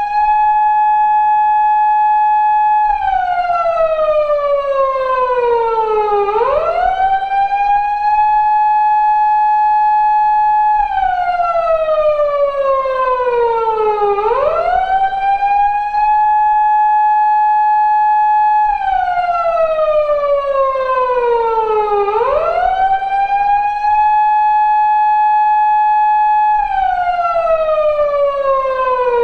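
Recreation of a 2000s Japanese police car siren, the kind fitted to 170- and 180-series Toyota Crown patrol cars, sounding its wail. The pitch rises quickly, holds a steady high tone for about three and a half seconds, then falls slowly over about four seconds, repeating every eight seconds.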